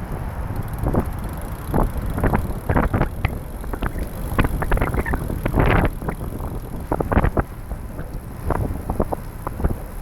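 Wind rumbling on the camera's microphone while riding a trike, with frequent irregular sharp taps and clatters.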